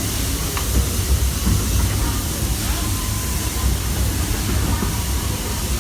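Walt Disney World Railroad steam train running steadily: a constant low rumble with a hiss over it and no distinct beat.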